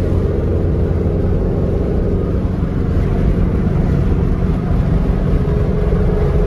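A 1967 Volkswagen Beetle's air-cooled flat-four engine running steadily at highway speed, with road and wind noise, heard from inside the cabin.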